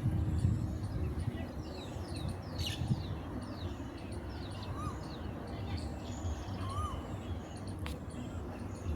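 Small birds chirping: a run of quick, short falling chirps for the first few seconds, then a couple of softer arched notes, over a steady low rumble of background noise. A single sharp click comes near the end.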